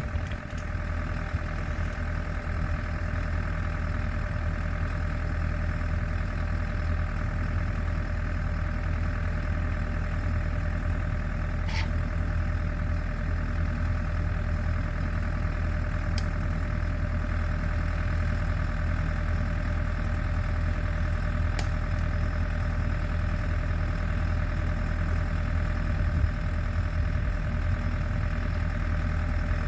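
Champion portable generator's engine running at a steady speed.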